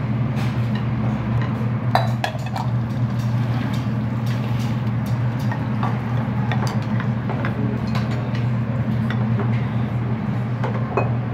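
Dishes and metal utensils clinking and knocking now and then over a steady low hum.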